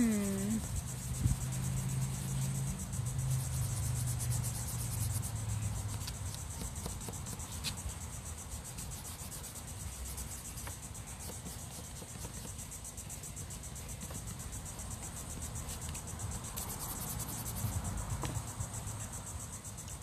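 A continuous high-pitched insect trill, pulsing very rapidly. A low rumble sits under it for the first few seconds and again near the end.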